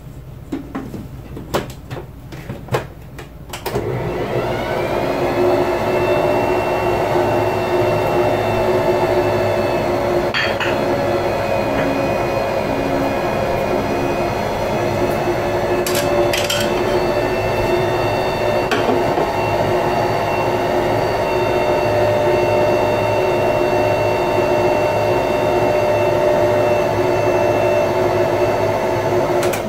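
A lid clatters onto a stand mixer bowl. Then the electric stand mixer starts about four seconds in, speeds up briefly and runs steadily, mixing bread dough, with a few knocks along the way. It stops near the end.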